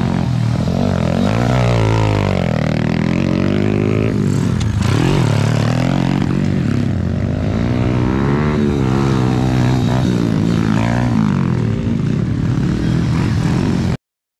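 Motocross dirt bike engines revving up and down as riders race along the dirt track, the pitch rising and falling again and again, with more than one bike heard at once. The sound cuts off suddenly near the end.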